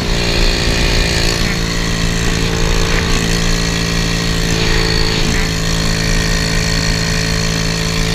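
A 125cc single-cylinder four-stroke pit-bike engine in a Honda ATC70 three-wheeler running at a steady cruising speed, its muffler can loose, so that the rider first thought he had blown the engine. Wind rushes over the microphone.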